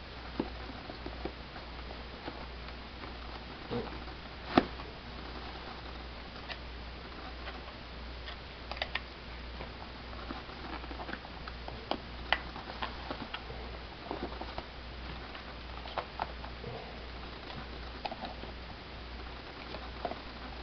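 An e-cigarette kit's box being handled: its inner tray is slid into the sleeve and the box is turned over, giving scattered light clicks, taps and rubbing, with one sharper knock about four and a half seconds in. A steady low hum runs underneath.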